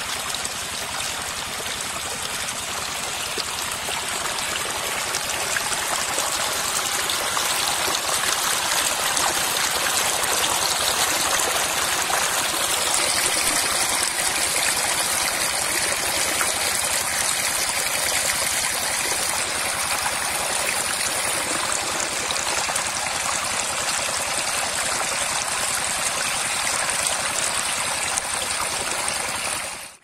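Shallow water rushing and splashing over ground right at the microphone: a loud, steady gush.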